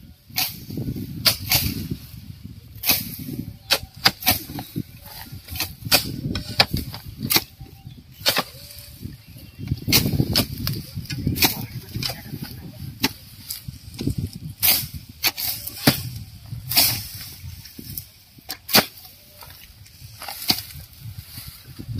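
Hoe blades chopping into soil and clumps of dry grass: sharp, irregular strikes about once a second, with rustling and scraping of grass between them.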